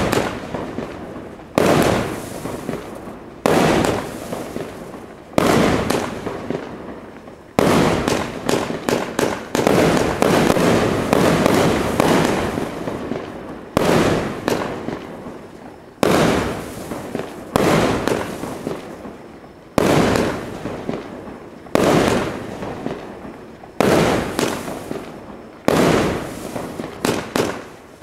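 A 1-inch-bore, 49-shot cake firework firing in sequence: a sharp bang about every two seconds, each trailing off into a fizzing crackle.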